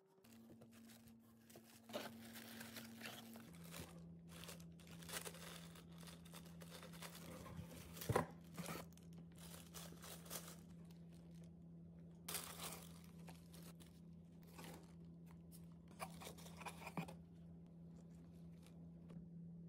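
Paper and cardboard packaging being handled and unpacked by hand: scattered rustling, crinkling and tearing with light clicks and taps, the sharpest tap about eight seconds in, over a faint steady low hum.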